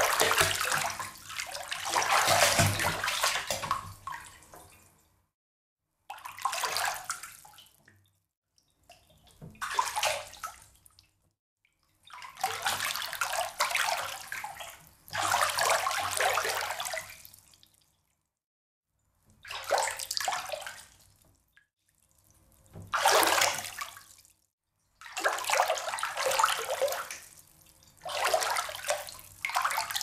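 Bathwater splashing in a tub, in about nine separate bursts of one to four seconds each with silent gaps between.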